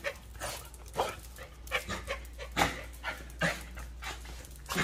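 Dogs panting, short breathy puffs coming at irregular intervals.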